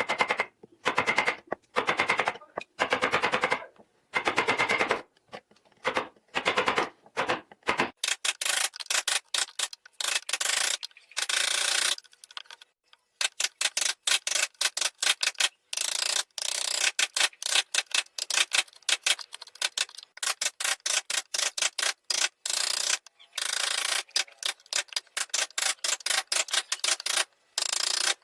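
A hand tool rasping and scraping wood in repeated quick strokes, each stroke a gritty run of fine clicks. The strokes come in bursts that stop and start abruptly.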